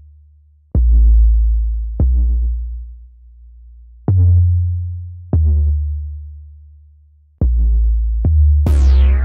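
Self-made electronic beat: deep bass notes, each struck with a sharp click and fading out slowly, in an uneven pattern of about six hits. Near the end a falling sweep brings in a fuller layer of synth notes.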